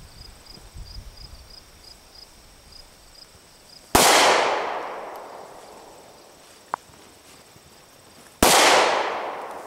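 Two shots from a Ruger SR9c compact 9mm pistol, one about four seconds in and the second near the end, each a sharp bang that echoes and fades over about two seconds.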